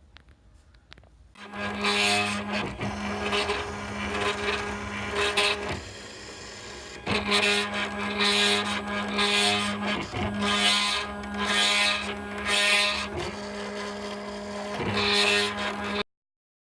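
A small electric motor running with a steady hum, with short rasping bursts breaking in at irregular intervals, as of a power tool or cutting machine at work. It starts about a second and a half in and cuts off abruptly near the end.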